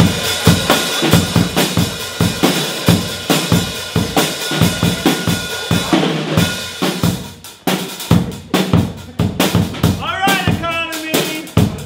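Drum kit played in a fast, busy beat, with snare and bass drum hits coming several times a second and a steady held tone over it for the first half. Near the end a short wavering, voice-like call rises over the drumming.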